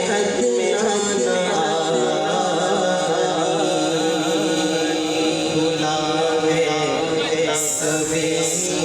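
Music with a singing voice carrying a chanted, wavering melody.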